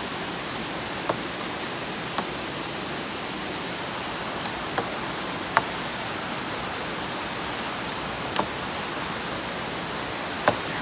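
Steady rushing of a mountain stream or waterfall, an even hiss. A handful of short sharp clicks stand out over it at irregular moments.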